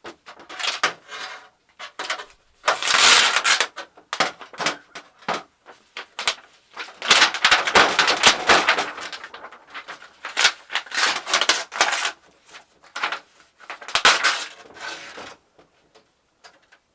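Clicks, knocks and scraping rattles of flat-screen TV parts being handled and pried apart during dismantling, with longer stretches of scraping a few seconds in, through the middle, and near the end.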